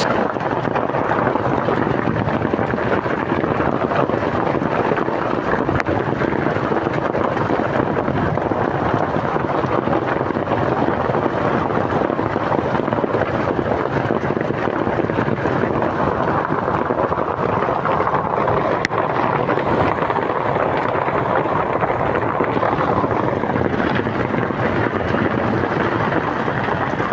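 Rain falling steadily, a dense, even rushing noise with no let-up.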